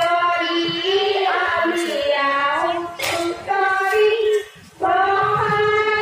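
Female voice singing a Jeng Bihu song, a high melody with long held notes, with one sharp clap about three seconds in and a brief break in the singing just after four seconds.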